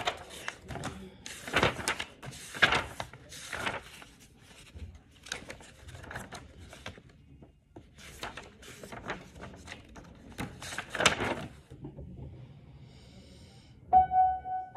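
Paper pages of a sheet-music book being flipped and rustled, a run of quick swishes one after another. An upright piano starts playing near the end.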